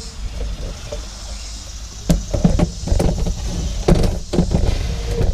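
Irregular clicks and knocks of plastic plumbing fittings being handled and hand-threaded onto a water pump's strainer, starting about two seconds in, over a low steady rumble.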